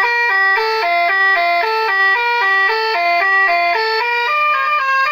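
Electronic telolet horn module playing its third tune: a loud, fast melody of horn notes stepping up and down several times a second, which moves to a higher-pitched pattern about four seconds in.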